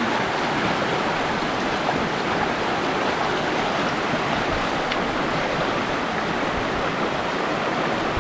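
River water rushing steadily, a constant even roar of flowing water.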